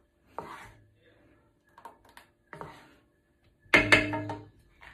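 Wooden spatula stirring thick custard in a non-stick pan, with a few light knocks and scrapes of wood on the pan and a louder, briefly ringing knock near the end.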